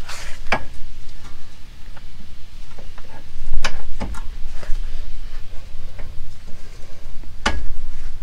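A handful of sharp metal clicks and knocks, spread out with gaps, as the outer tie rod end is handled and fitted back into the steering knuckle of a Honda Ridgeline's front suspension.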